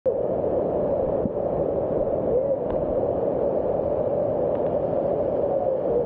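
Waterfall cascading over rock, a steady rush of falling water that keeps an even level throughout.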